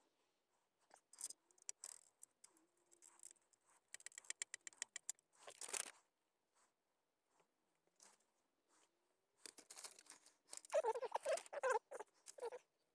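Sped-up handling noises: paper instruction sheets rustling and small plastic mount parts clicking. A quick run of clicks comes about four seconds in, and a louder patch of rustling and squeaks comes near the end.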